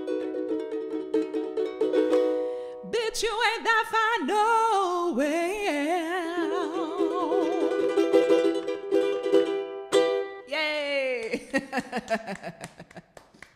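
Ukulele strumming chords, joined about three seconds in by a woman singing with a wide vibrato, her voice sliding down in pitch. Another downward vocal slide comes near the end as the strumming fades out.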